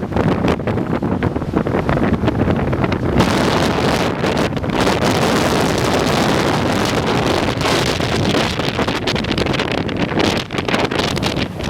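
Storm-force wind gusting hard across the microphone in a loud, continuous rumbling buffet. About three seconds in, a steady hiss fills in higher up and stays.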